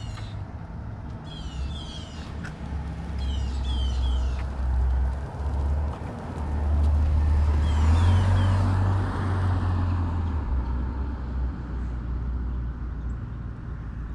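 Outdoor street background with a low rumble that swells to its loudest about eight seconds in as a vehicle passes. Over it, a bird calls in three bursts of short falling chirps.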